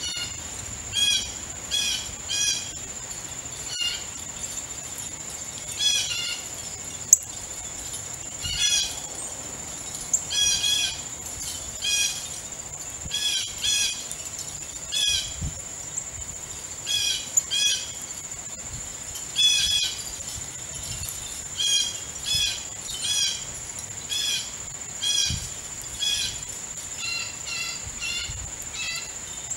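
Wild birds giving short harsh calls, repeated every second or two, often in twos and threes, over a steady high whine.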